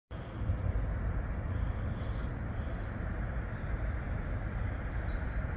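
Steady outdoor rumble of distant vehicles beside a tram line, coming in abruptly and holding at an even level, with a tram still far off down the track.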